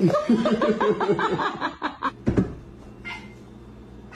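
A person laughing in a quick run of short giggles, then a single thump a little over two seconds in.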